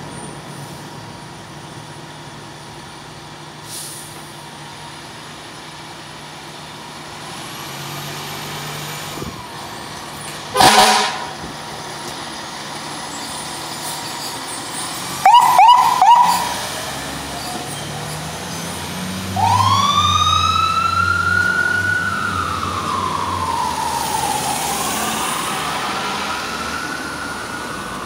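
Fire engine (2007 Spartan Gladiator / Smeal pumper) leaving its station. Its diesel engine is running, and a single short horn blast sounds about ten seconds in, then three quick horn toots around fifteen seconds. A few seconds later the siren starts up and wails, rising and falling in pitch, while the engine revs as the truck pulls away.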